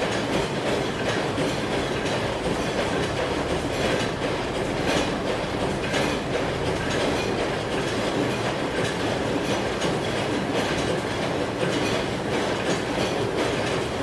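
Steady, loud mechanical clatter and rumble with a scatter of small irregular clicks and rattles, without let-up.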